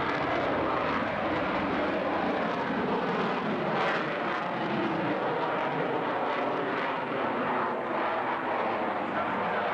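Twin-engine F/A-18 fighter jet flying a display overhead, its jet engine noise a steady, even rush with no marked rise or fall.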